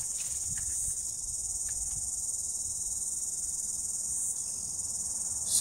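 Steady high-pitched chorus of insects, with a few faint clicks.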